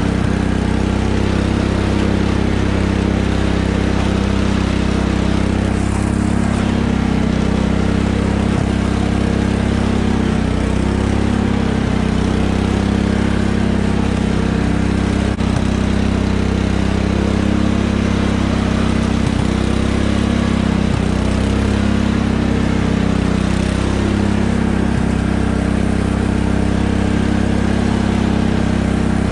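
A Cub Cadet lawn tractor's engine running steadily at an even pitch while the tractor is driven.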